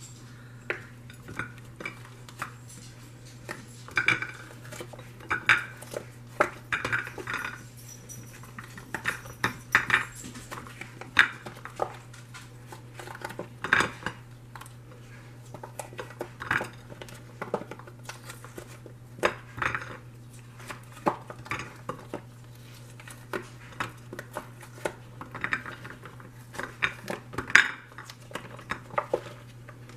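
Hardened chocolate peanut-cluster candies being pushed out of a silicone mold and dropped onto a ceramic plate: irregular light clicks and clacks, a few every second, over a steady low hum.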